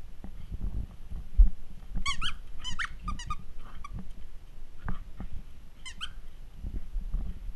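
Pembroke Welsh corgi puppy giving short, high-pitched yips in quick runs, about two seconds in and again near six seconds, over scattered low thumps, the loudest just before the first yips.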